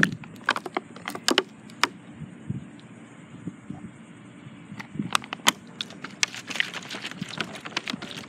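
Irregular light clicks and taps, a few at first and then coming thick and fast in the second half.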